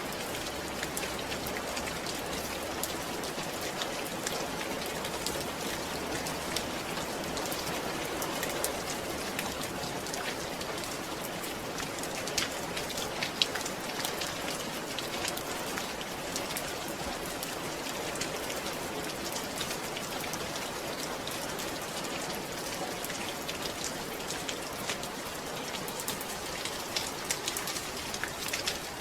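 Steady rain falling, with a constant hiss and many individual drops ticking on surfaces.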